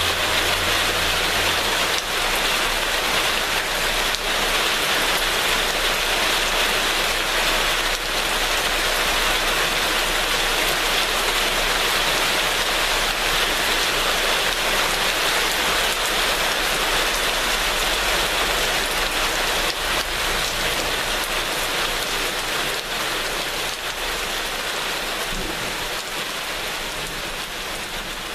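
Steady heavy rain, a dense even hiss of drops, gradually fading over the last several seconds.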